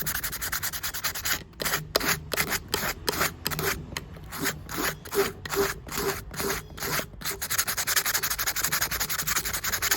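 Hardened steel blade of a pair of pruning shears being scrubbed by hand with an abrasive to clean off grime and rust, in quick back-and-forth strokes about two or three a second. The strokes run together into steady scrubbing near the end.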